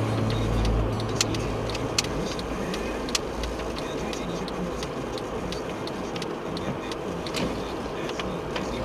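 Steady road and engine noise inside a moving car, with a few sharp clicks scattered through it.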